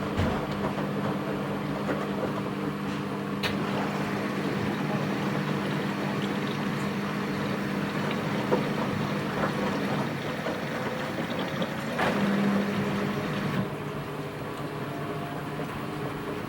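Washing machine running mid-cycle: a steady motor hum with water sloshing in the drum. The hum swells briefly about twelve seconds in, and the sound softens about two seconds later.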